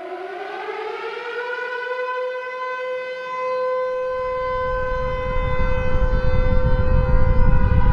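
Civil-defense-style siren winding up in pitch and then holding a steady wail. A deep rumbling noise builds underneath from about halfway in and keeps getting louder.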